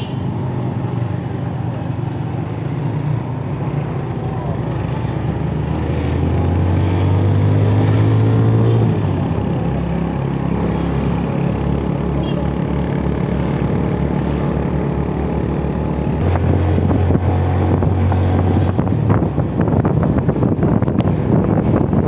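Motorcycle engine running under way, its pitch rising as it accelerates through a gear about six to nine seconds in, then dropping at a gear change. Wind buffets the microphone, more so near the end.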